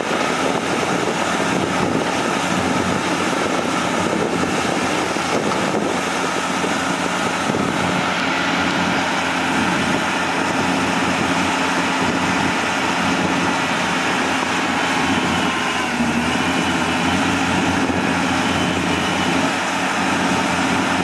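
Caterpillar 320C hydraulic excavator's diesel engine running steadily under load as the boom and bucket push against an overturned dump truck's bed. The engine note dips and recovers briefly about three quarters of the way through.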